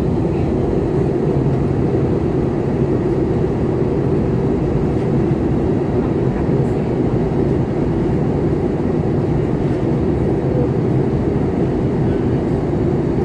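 Steady, low cabin noise of a jet airliner in flight: engine and airflow noise heard inside the cabin.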